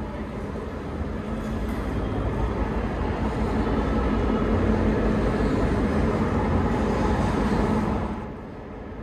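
Diesel locomotive engine running, growing louder over the first few seconds with a steady low hum, then dropping off sharply about eight seconds in.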